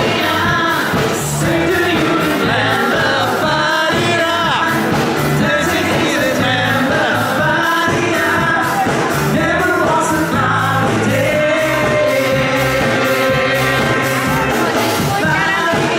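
Pop-rock music with a singing voice over a steady beat.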